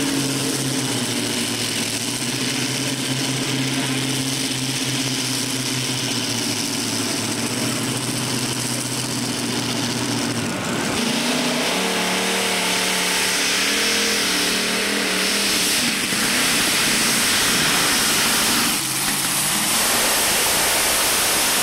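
Modified pulling tractor's twin supercharged engines running at a steady idle while warming up. About ten seconds in they are revved, and in the last few seconds they run at full throttle for the pull, very loud.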